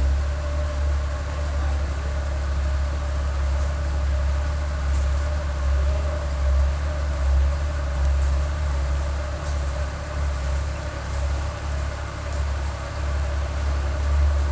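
Komatsu excavator's diesel engine running steadily with a deep, even drone.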